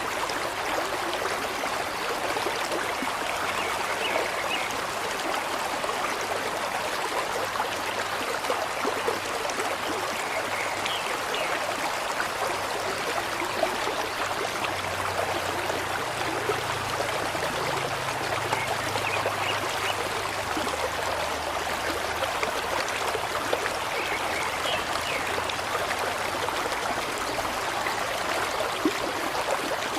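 Steady rushing of running water, like a flowing stream, with no breaks.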